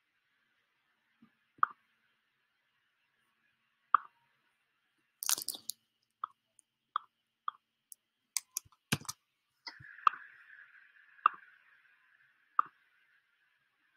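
Computer mouse clicking: about a dozen short, separate clicks, roughly one a second, with a quick cluster of clicks about five seconds in.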